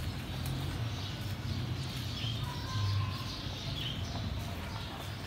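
Outdoor background with a steady low hum and a few faint bird chirps, one about two seconds in and another near four seconds.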